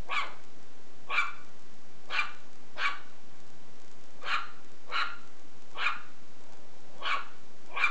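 Shih Tzu puppy barking in short yaps, about nine of them at roughly one a second, with uneven gaps.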